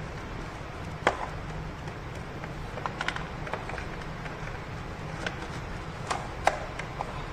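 Plastic cable trunking covers being pressed shut onto the duct: a series of sharp clicks and snaps, scattered irregularly, the loudest near the end, over a low steady hum.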